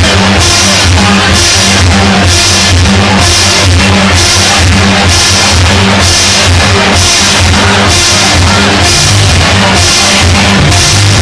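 Loud electronic dance music from a DJ set over a nightclub sound system, with heavy bass and a steady pulsing beat, picked up by a phone microphone.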